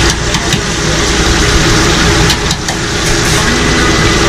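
Steady loud drone of a food stall's extractor fan over the hiss of a deep fryer, with a few sharp metal clicks of tongs just after the start and again a little past halfway.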